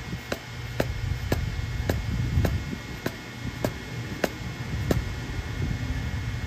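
Milling-machine table being cranked by hand, its feed handwheel giving sharp clicks about twice a second, over the steady low hum of a shop fan.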